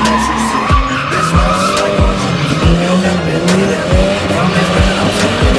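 Drift cars sliding sideways, tyres squealing and engines revving, mixed with background music that has a steady kick-drum beat.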